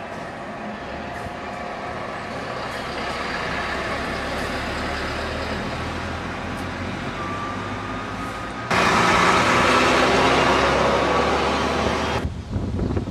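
Volvo heavy truck with a low-loader trailer driving past, its diesel engine running steadily and slowly getting louder as it approaches. About two-thirds in the sound jumps suddenly louder into a broad rushing noise as the truck and its load pass close, easing off again near the end.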